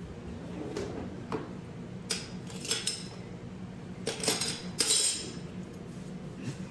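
Metal utensils clinking and clattering against dishes on a kitchen counter: a few short, separate clatters, the loudest a cluster about four to five seconds in.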